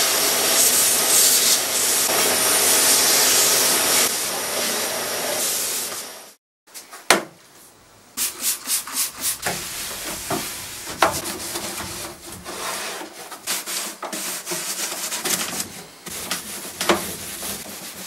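Kärcher wet-and-dry shop vacuum running steadily while its nozzle sucks out a drawer opening in stripped wood, cutting off about six seconds in. Then a cloth rubbing over the bare wood in quick strokes, with a few sharp wooden knocks, as the stripped surfaces are wiped down and cleaned.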